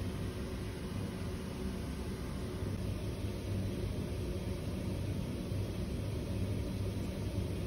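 Steady low hum with a hiss above it, unchanging throughout: the background noise of the room.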